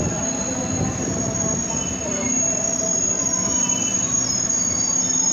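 Tokyu 8500 series electric commuter train moving along a station platform: steady running noise with a constant high whine and brief high-pitched wheel squeals that come and go.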